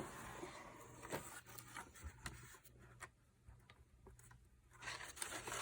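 Faint handling noise of a subscription box and its packaging being opened: light scratches, taps and rustles, quieter in the middle, with louder rustling starting about five seconds in.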